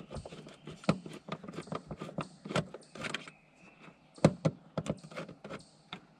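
Hand tools clicking and clattering against metal as a hose clamp is worked loose under the hood: a run of irregular sharp clicks and light metallic rattles, the loudest snap about four seconds in.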